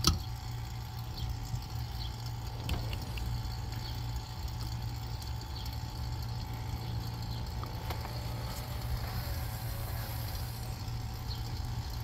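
Small electric vacuum pump running with a steady low hum while it holds a car's air-conditioning system under vacuum through the manifold gauges. There are faint clicks at the start and about three seconds in as the gauge valves are turned closed.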